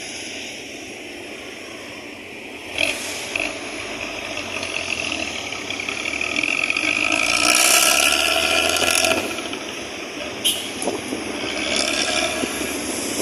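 Aneka Jaya bus engine running with a loud, snoring-type ('ngorok') exhaust, swelling to its loudest about eight seconds in and then easing off, with a couple of short sharp sounds along the way.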